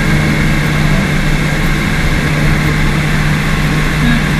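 Glass-bottom boat's engine running steadily, heard from inside the hull: a constant low hum with an even rush of noise over it.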